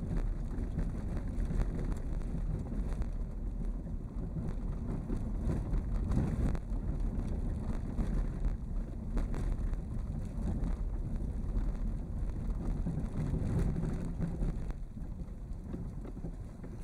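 Vehicle running along a road, heard as a steady low rumble mixed with wind buffeting the microphone; it fades away near the end.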